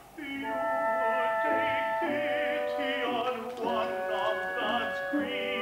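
Opera music starts abruptly: an accompaniment of held, overlapping notes, with a singing voice in wide operatic vibrato over it.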